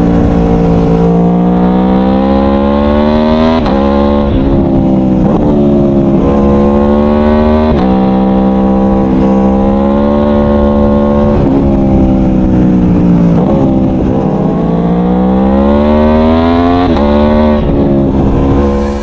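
Aprilia Tuono V4 1100's V4 engine accelerating through the gears. Revs climb and drop sharply at each upshift, several times over, with a spell of easing off about two-thirds of the way through.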